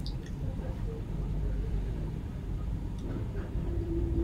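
Low, steady rumble of background noise with a few faint ticks, and a faint steady hum that comes in about three seconds in.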